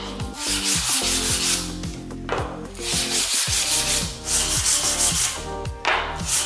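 Hand-sanding wooden strips with a small piece of sandpaper: quick back-and-forth rubbing strokes in runs, with short breaks between them.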